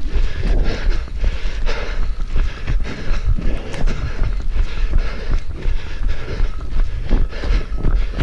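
A runner's footsteps at a steady pace, about three strides a second, over a constant low wind rumble on the microphone.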